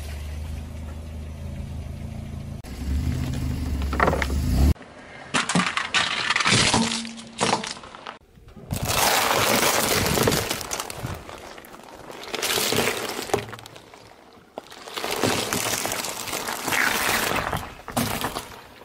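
Eggs cracking and crunching under a car tyre as it rolls over trays of them. Several long bursts of crackling shells begin about five seconds in.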